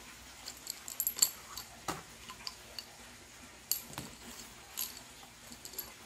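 Scattered light clicks and taps of a car air-conditioning recharge hose kit being handled: brass fittings, gauge and valve knocking together as it is unwrapped from its paper packaging.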